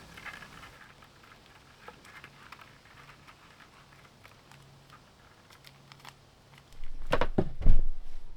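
Light, scattered clicks and taps, then a quick run of several loud knocks about seven seconds in.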